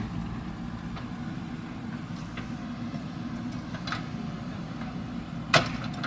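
Heavy diesel engine running with a steady low drone, with a few sharp knocks over it, the loudest about five and a half seconds in.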